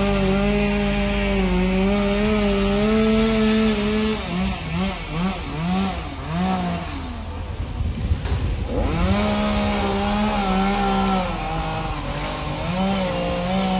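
Chainsaw engine running at high revs while cutting a tree. About four seconds in it is throttled on and off several times, then drops away for a couple of seconds with a single thump. It runs high again, with a short break near the end.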